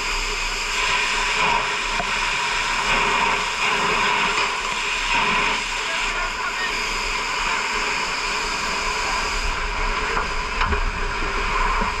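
A steady hiss with no breaks, its energy mostly in the upper middle range.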